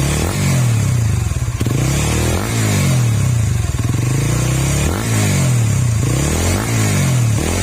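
Honda Supra GTR 150's single-cylinder engine revved over and over through an MVR1 racing exhaust, the pitch rising and falling about once a second. A full, solid exhaust note.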